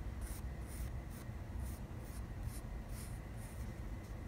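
Pencil scratching on paper as two small circles are drawn, a quick run of short, soft strokes.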